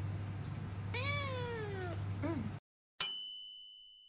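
A tabby-and-white cat meows once, one long call that rises then falls, followed by a short chirp. The sound then cuts out, and a bright chime rings once about three seconds in and fades away slowly.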